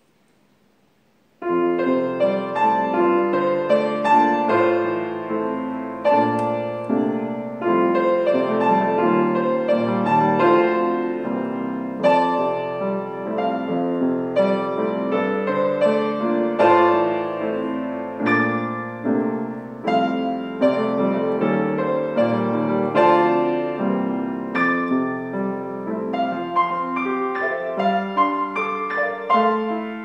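Yamaha grand piano being played, a simple piece of chords and melody notes that starts about a second and a half in and runs on at a steady pace.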